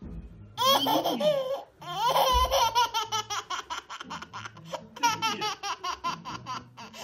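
A girl of about one year laughing hard: long giggling bursts at first, then runs of short, quick 'ha' pulses, about five a second.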